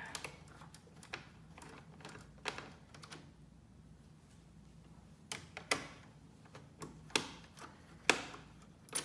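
Irregular sharp clicks and taps of small plastic and metal laptop parts being handled during disassembly, louder and more spaced out in the second half.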